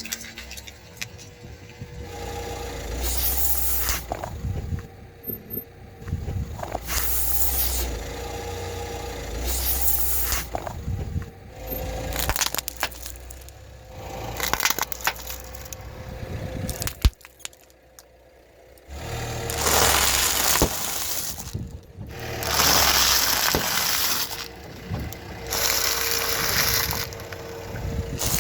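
A car tyre rolling over and crushing plastic cups: repeated stretches of cracking, crunching and scraping, each a second or two long.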